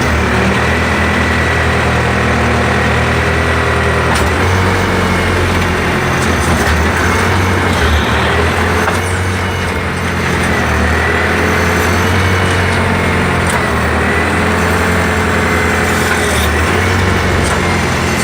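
Backhoe's diesel engine running steadily under load, with a higher whine that rises and falls several times as the digging arm and extendable dipper are worked.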